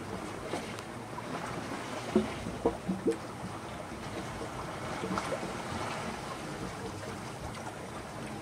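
Sailboat under way at sea: a steady rush of water along the hull and wind, with a few short, sharp sounds about two to three seconds in.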